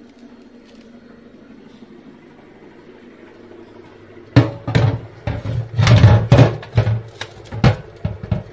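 Plastic boxes of frozen meat and fish knocking and clattering against a stainless-steel sink as they are set down in it. After a quiet stretch, a run of loud, irregular knocks begins about four seconds in.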